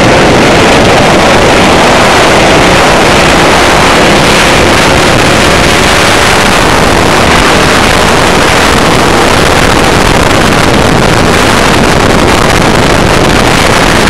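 Race kart's small petrol engine running hard at racing speed, heard loud and distorted from a camera mounted on the kart, mixed with wind noise on the microphone.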